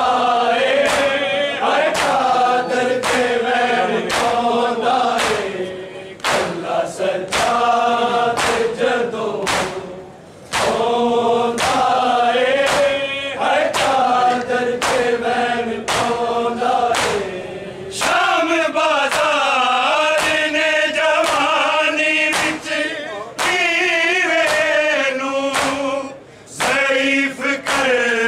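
Men's voices chanting a Punjabi noha together, with sharp chest-beating strikes of matam keeping a steady beat about twice a second. The singing breaks off briefly about ten seconds in and again near the end.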